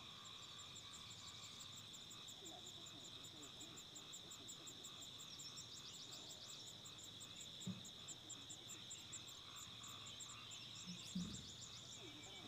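Faint insect chorus: a steady high drone with rapid, evenly repeated ticking chirps above it. Two soft low thumps come about two-thirds of the way through and near the end.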